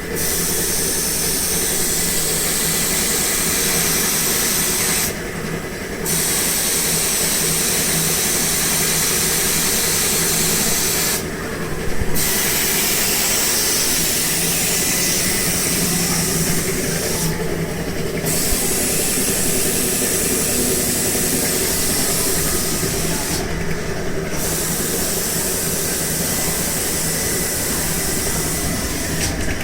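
Single-arm adhesive-tape roll cutting machine running with a steady hissing whir; the hiss drops out for about a second roughly every six seconds, a repeating machine cycle.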